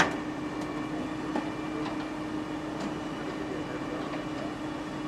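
Steady mechanical hum of machinery running, with a sharp click at the start and a few faint clicks after.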